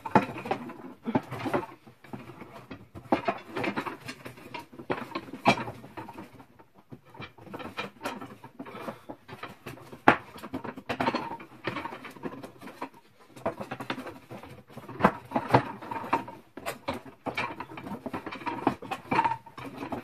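A wooden drying-rack piece being fed onto and pushed along its wooden dowels: irregular wood-on-wood rubbing, scraping and clacking. The piece is a tight fit on the dowels.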